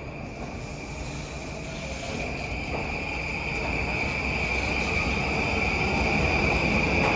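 A train approaching along the platform, its rumble growing steadily louder, with a steady high-pitched whine that strengthens as it nears.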